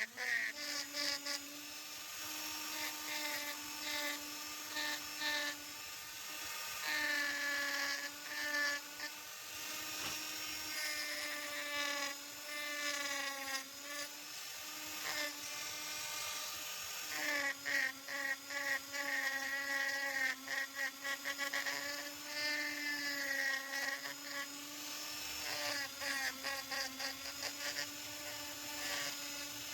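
Small high-speed handheld power tool, such as a rotary tool, running steadily while working wood. Its pitch wavers and dips as it bites in and eases off, with short breaks.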